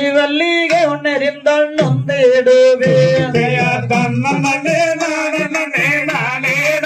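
A man singing a Valli kummi folk song, a chant-like melody with long held notes.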